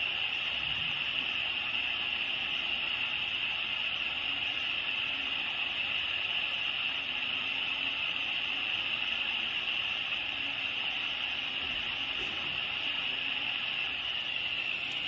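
Small handheld gas blowtorch burning with a steady hiss while it heats a twisted copper wire splice until the solder melts and flows into the joint.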